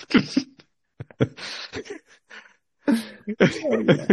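People laughing: breathy chuckles, then a quick run of short laughs near the end.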